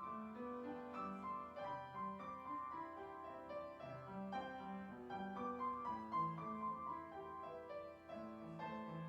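Background piano music: a steady stream of notes, coming in just before this point after silence.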